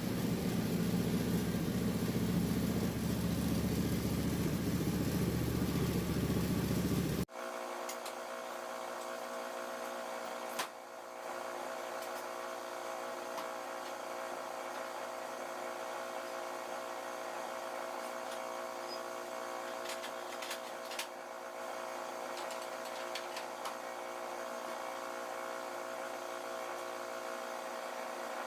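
Woodmizer LT10 bandsaw mill running as it saws a black walnut log. The sound is loud and steady, then changes abruptly about seven seconds in to a quieter, steadier hum with a few clicks.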